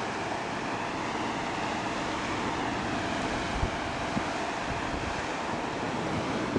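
Steady wind noise on the camera microphone of a rider hanging high under a parasail, with a couple of small bumps a little after halfway.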